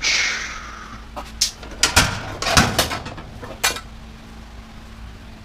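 Sheet-metal parts of a washer/dryer being handled during dismantling: a scraping slide about a second long, then several sharp knocks and clanks, over a faint steady hum.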